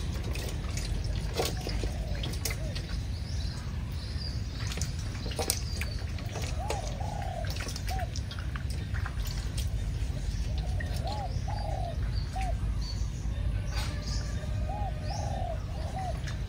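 A dove-like bird cooing in three short phrases of about three notes each, a few seconds apart, over a steady low rumble and a few faint clicks.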